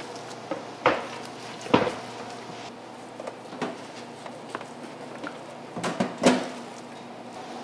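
A few sharp knocks and clicks, scattered and irregular, over a steady background hum; the loudest come about a second in, just under two seconds in, and in a quick cluster near the end.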